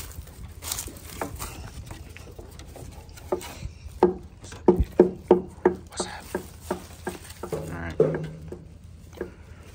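Dogs right at the microphone on a wooden deck: a quick run of short, even sounds, about three a second, through the middle, and a short low whine near the end.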